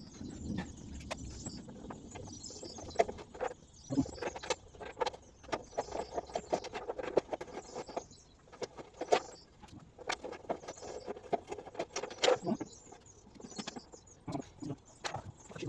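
Irregular metallic clicks, knocks and rattles of spanners and bolts as a fuel tank is worked into place and bolted to a Land Rover Defender chassis, with quick runs of clicks in between the louder knocks.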